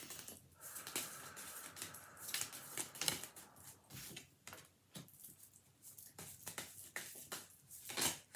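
A deck of oracle cards being shuffled by hand, the cards sliding and slapping against each other in quick, irregular strokes.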